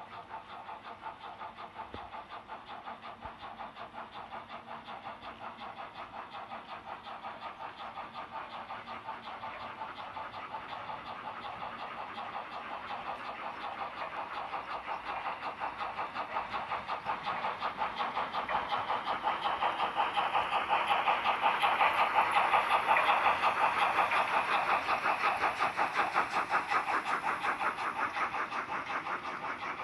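H0-scale model freight train, headed by a steam locomotive model, running along the track. Its wheels and motor make a fast, even clicking over a steady hum that grows louder as the train approaches, is loudest a little after the middle, and eases slightly as the wagons roll past.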